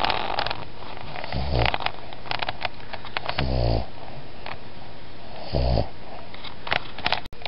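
A Boston terrier–pug cross dog snoring: three low snores about two seconds apart, with crackly, rattling breaths between them.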